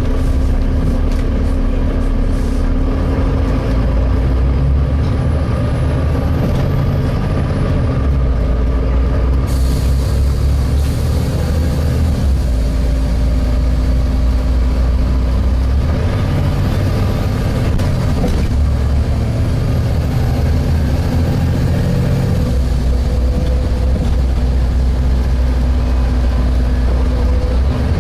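Interior sound of a Volvo B7TL double-decker bus under way: the diesel engine drone with a steady hum, its low rumble swelling and easing several times as load changes. A rushing hiss steps up about a third of the way in, with faint high whistles above it.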